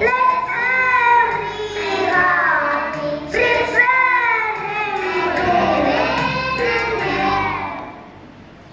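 Children singing a Christmas song together over an instrumental backing; the singing and music stop near the end.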